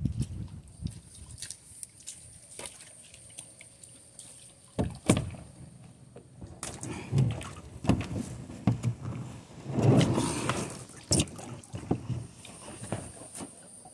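A plastic kayak being boarded and paddled on the water: sharp knocks against the hull, the loudest about five seconds in, then irregular sloshing of water and paddle strokes.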